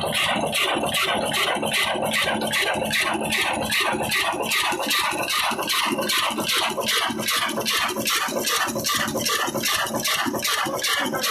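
Old black 22 HP diesel engine running steadily, a fast, even metallic clatter and knock with no change in speed.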